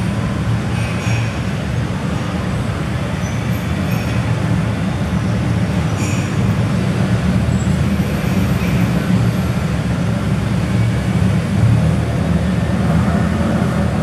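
Steady low rumble of background noise, with a couple of faint light clicks about a second in and near the middle.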